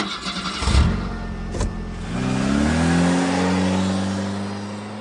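A motor-vehicle engine that revs up with a rising pitch about two seconds in, then runs steadily and slowly fades, after a couple of knocks near the start.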